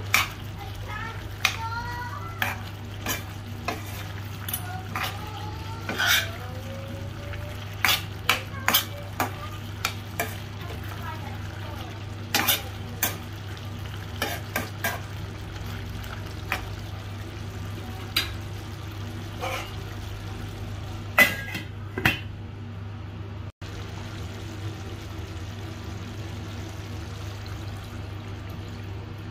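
A metal spatula stirs chicken pieces in a stainless steel pan, scraping and clacking against the pan again and again over faint sizzling and a steady low hum. The clacks come thickest early on and stop about two-thirds of the way through.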